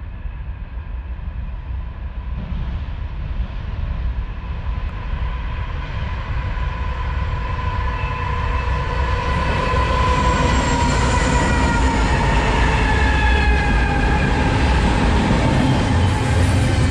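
BNSF diesel freight locomotives approaching and passing, their low rumble growing louder, with a high steady whine that dips in pitch as they go by. The double-stack container cars then roll past with a continuous rumble.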